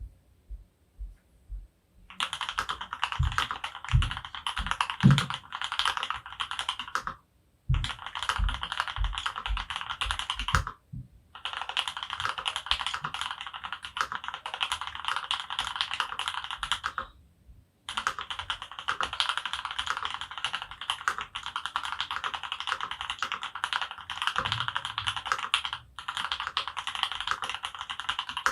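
Fast typing on a custom mechanical keyboard, an Archon RE:AL Platinum FX with Krytox 205g0-lubed H1 switches on an aluminium plate: rapid runs of keystrokes broken by a few short pauses.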